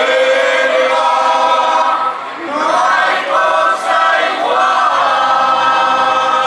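A choir singing, with long held notes in short phrases of about two seconds each.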